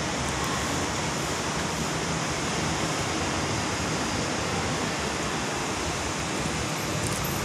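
Steady, even hiss with no other distinct sound.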